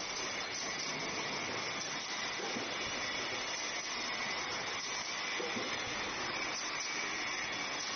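Full-servo plastic thermoforming machine running: a steady hissing machine noise with no distinct strokes.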